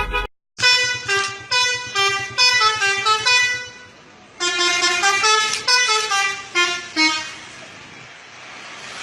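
Musical car horn playing a tune of short notes in two phrases, with a brief pause between them, then steady background noise near the end.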